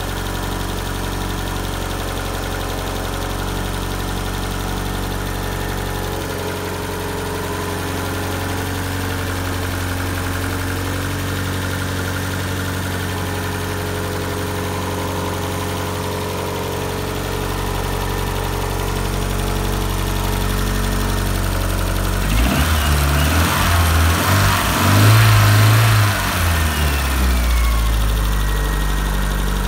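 Nissan CA18ET turbocharged four-cylinder engine idling steadily after a head gasket change. About 22 seconds in, it is blipped on the throttle a few times, then settles back to a steady run.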